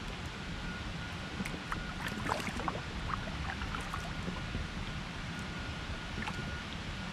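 Inflatable kayak gliding on still canal water: a low steady rumble with a few faint water drips and trickles, most of them about two seconds in.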